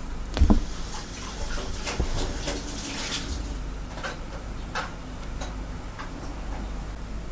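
Hand embroidery: a needle piercing fabric stretched in an embroidery hoop and the stranded cotton thread drawn through, a series of short scratchy pulls spaced about half a second to a second apart. A dull knock about half a second in is the loudest sound.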